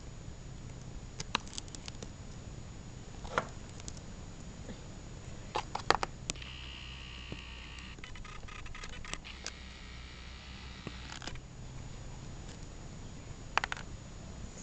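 Scattered sharp clicks and knocks of steel hemostat forceps gripping and prying barnacles off a sea turtle's underside, with a louder cluster about six seconds in and again near the end.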